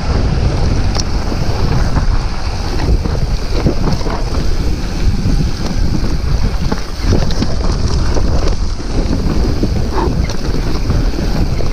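Wind buffeting the microphone and the tyres of a Cotic mountain bike rolling fast over a dirt trail, with the bike knocking and rattling over bumps.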